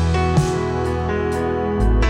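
Worship-song accompaniment between sung lines: instrumental music with guitar, sustained chords over a steady bass note that changes near the end.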